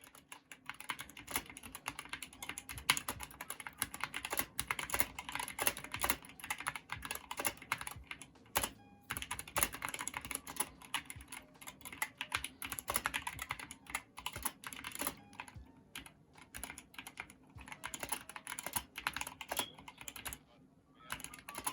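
Fast, continuous typing on a Dierya DK61 Pro 60% mechanical keyboard with Gateron optical red switches: a rapid stream of key clacks, broken by short pauses about eight and a half seconds in and near the end. A faint spring ping from the keys runs under the typing, quiet enough that you have to focus to hear it.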